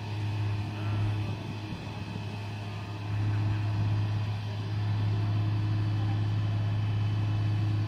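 Crane's engine running steadily with a deep hum while it holds a mobile home on the lift; it gets louder about three seconds in.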